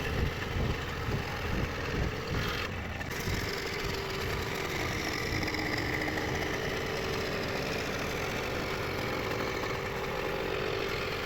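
Scroll saw running with a Pegas No. 5 spiral blade, cutting through thin 3.6 mm plywood: a steady, rapid mechanical buzz of the reciprocating blade.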